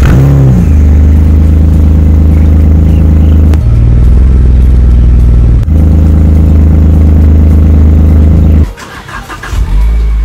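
Alfa Romeo 156 engine starting from cold at the exhaust, flaring briefly as it catches and then settling into a steady fast idle, with the note changing for about two seconds midway. Near the end the sound breaks off and another Alfa Romeo's engine starts.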